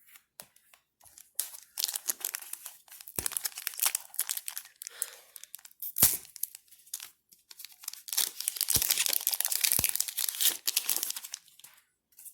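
Trading-card booster pack wrapper being torn open and crinkled by hand, with a few sharp clicks. The densest crinkling comes about eight to eleven seconds in.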